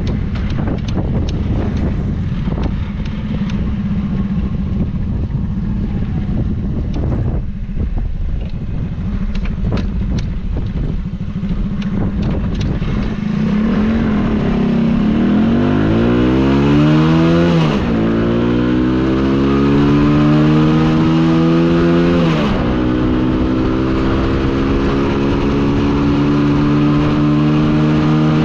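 United US 100 motorcycle's 100cc single-cylinder four-stroke engine running at steady low revs with wind noise, then accelerating hard through the gears from about halfway in. The pitch climbs, falls twice as it shifts up, and keeps rising.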